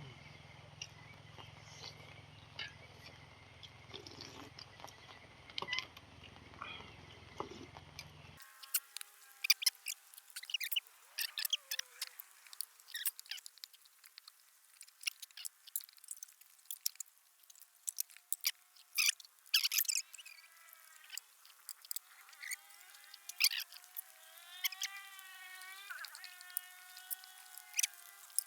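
Close-up eating of pork bones: wet clicks and smacks of chewing, with squeaky, wavering tones in the last few seconds.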